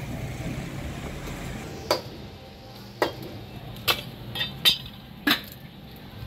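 A cleaver chopping grilled fish on a thick wooden chopping block: about six sharp knocks, roughly one a second, starting about two seconds in. Steady street noise comes before them.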